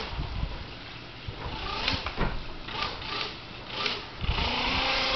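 Small battery-powered electric motors of a radio-controlled boat running on the water, whirring in uneven spurts that are strongest near the end.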